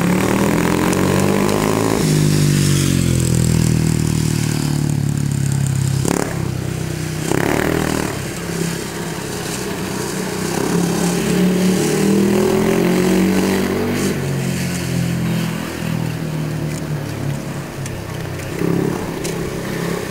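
Speedway bike's 500cc single-cylinder engine running as it laps the track, its pitch rising for the first couple of seconds, dropping, then rising and falling again several times as the throttle is opened and eased off. A single sharp knock is heard about six seconds in.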